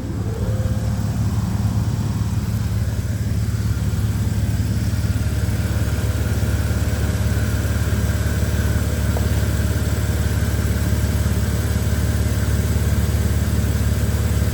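BMW inline-six engine idling steadily through a muffler-deleted exhaust, with no lifter tick heard: hydraulic lifter additive has quieted the top-end noise.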